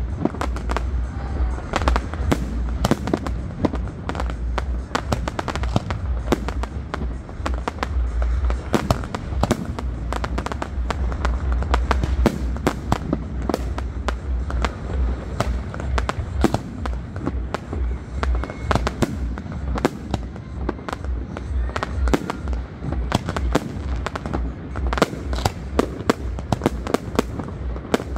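Fireworks display: a dense, continuous barrage of sharp bangs and crackles from aerial shells bursting, several a second, over a steady low rumble.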